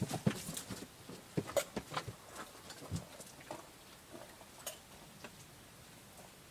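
Chili heating in a saucepan on a gas burner, with irregular soft pops and small ticks that thin out after about three seconds.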